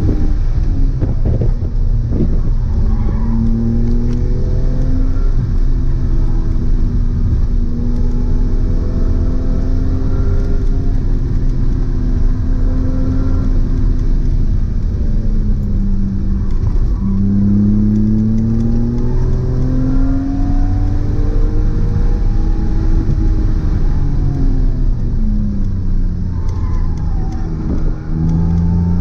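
BMW E46 M3's straight-six engine driving, its pitch climbing and falling repeatedly as it accelerates and eases off, with a couple of quick drops in pitch like gear changes.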